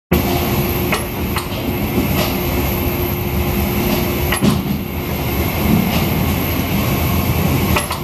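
Large industrial ultrasonic cleaning tank running with its liquid circulating: a steady, loud rumble and churn of machinery and moving water. A thin steady hum stops about four and a half seconds in, and a few sharp clicks come about a second in, halfway through and near the end.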